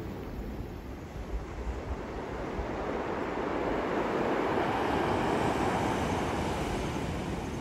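Sea surf breaking and washing ashore, a steady rush that swells about halfway through, with wind rumbling on the microphone.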